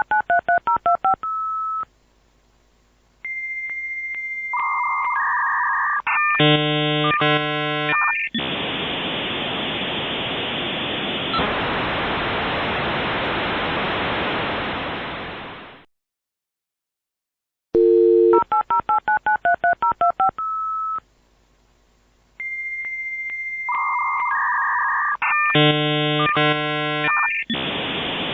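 Dial-up modem connecting: a quick run of touch-tone dialing beeps, a short pause, then the answering modem's high steady tone, warbling handshake chirps and a long harsh hiss that cuts off suddenly about 16 seconds in. After a brief silence the same dialing and handshake sequence starts over.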